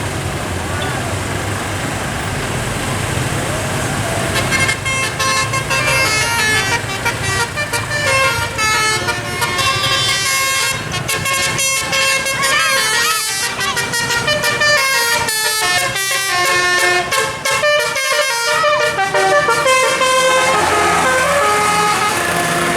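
Bus telolet horns, sets of musical trumpet horns, playing a fast melody of quickly changing notes, loud. It starts about four seconds in, after a stretch of engine and traffic noise.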